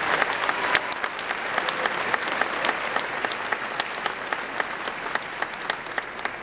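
Large audience applauding, a dense patter of hand claps that eases off slightly towards the end.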